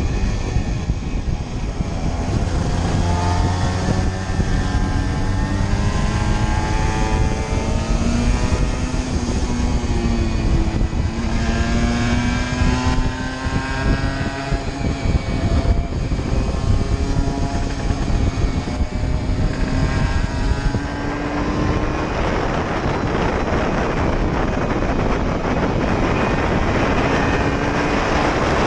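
Aprilia RS125's 125 cc single-cylinder two-stroke engine running hard, its pitch climbing and dropping back several times. In the last third, wind noise on the microphone largely covers the engine.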